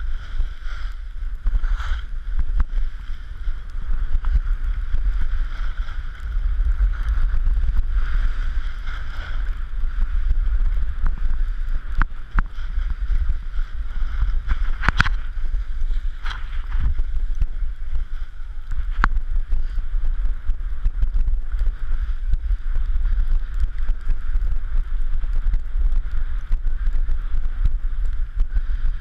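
Wind buffeting an action camera's microphone during a fast downhill ski run, with the steady hiss of skis sliding over snow and a few sharp clicks in the middle.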